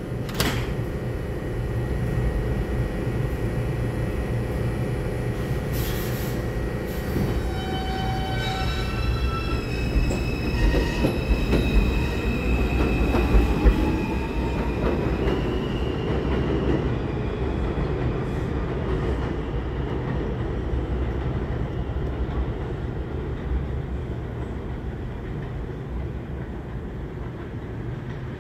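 R142 subway train pulling out of the station: a sharp knock near the start, then the traction motors' whine stepping up in pitch as it accelerates over rumbling, clicking wheels on rail. The sound slowly fades as the train moves away.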